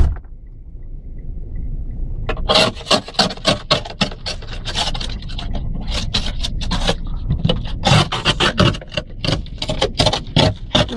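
A brief thump, then from about two seconds in quick, irregular scraping strokes, several a second, as snow is scraped and brushed off the car's glass.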